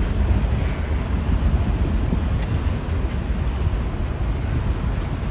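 A long freight train rolling past, a steady low rumble of its cars on the rails.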